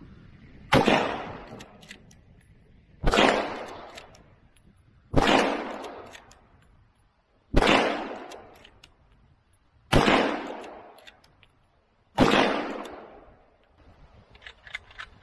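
Lever-action rifle fired six times, one shot about every two seconds, each loud report followed by a fading echo off the hillside. A few faint clicks come near the end.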